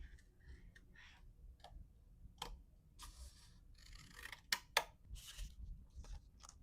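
Hand-packing of press-on nails: small sharp clicks and short papery rustles as packaging pieces are handled. The loudest is a quick pair of clicks about two-thirds of the way through.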